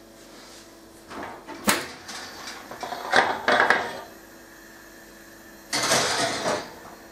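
A metal doughnut baking tin being put into a gas cooker's oven, with oven-door handling sounds: a sharp knock, a run of metal clatters, then a longer scrape near the end.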